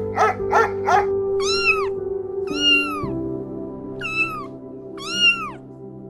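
Husky puppies giving a few quick yips in the first second, then a kitten meowing four times, each meow rising and falling in pitch, over background music.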